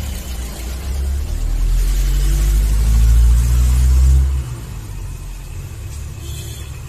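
A loud low rumble that swells over about four seconds and then drops off suddenly, leaving a quieter low rumble.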